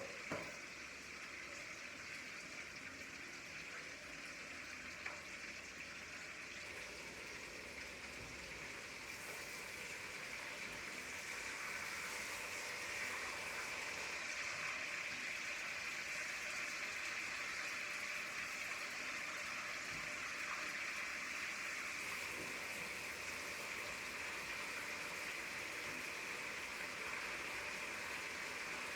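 Hot oil sizzling steadily as food fries in a pot, growing a little louder about ten seconds in.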